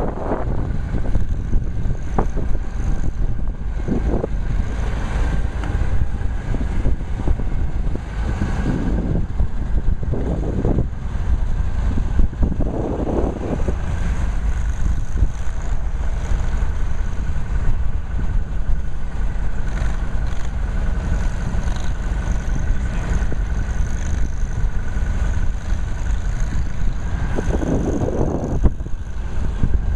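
Small engines of amphibious six-wheel ATVs running as the machines drive through snow, their sound swelling several times as they rev or pass close, over a heavy low rumble.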